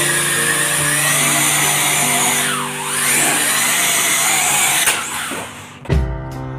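WLtoys V333 Cyclone quadcopter's motors and propellers whining as it takes off and flies, the pitch dipping and rising again about halfway through as the throttle changes. The whine fades out about five seconds in, and background music takes over near the end.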